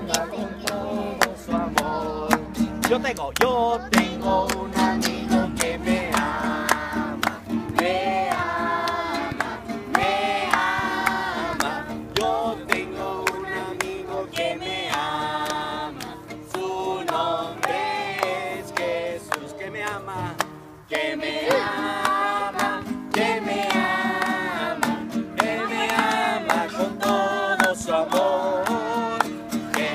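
A group of children and adults singing together in unison to a strummed acoustic guitar, with a short break about two-thirds of the way through before the singing picks up again.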